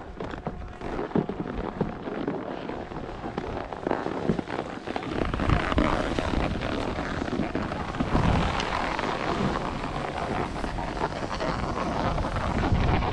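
Wind rumbling on a handheld camera's microphone, mixed with the scrape of skis sliding over groomed snow. The rumble grows heavier about five seconds in.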